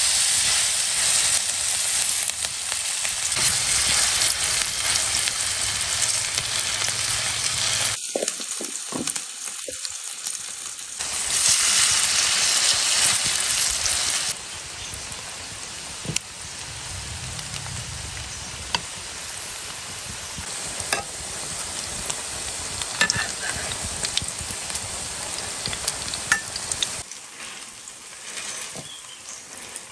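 Battered shredded cabbage and carrot sizzling loudly in hot oil in a wok as fritters fry. The sizzle flares up again a few seconds later as more batter goes in, then settles to a quieter frying hiss with occasional sharp clicks of chopsticks turning the fritters.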